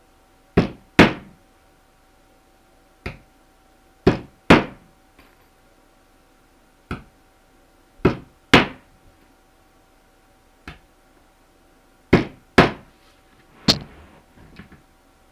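Hammer driving nails through a beaver hide into a wooden boarding board. Each nail gets a light tap to set it, then two hard blows, about one nail every four seconds. A few lighter taps come near the end.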